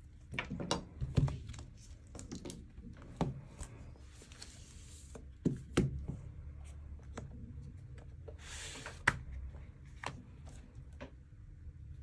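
Cardboard phone packaging being handled and opened on a table: scattered knocks and taps of the box and knife, and twice a short rasp of cardboard sliding against cardboard as the sleeve and inner box are pulled apart.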